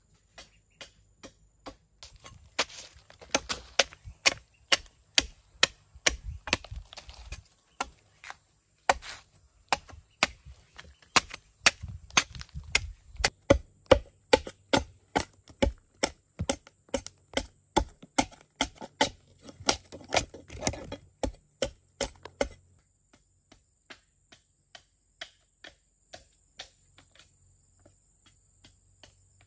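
Machete chopping into a wooden log to hew it into shape: a steady run of sharp wooden chops, two or three a second. The strikes become much fainter for the last several seconds.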